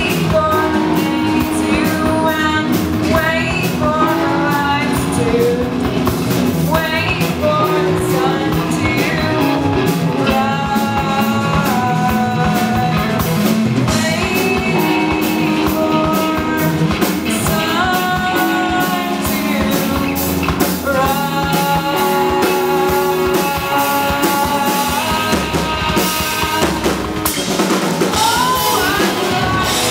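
Live rock band playing: a woman sings over two electric guitars and a drum kit.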